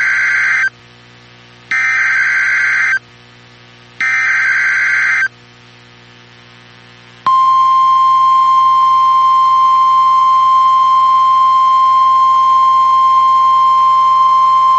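Emergency Alert System header: three bursts of warbling SAME data tones, the first already under way, about a second apart, then a single steady attention tone near 1 kHz starting about seven seconds in. Together they announce the start of a weather alert, here a flash flood warning.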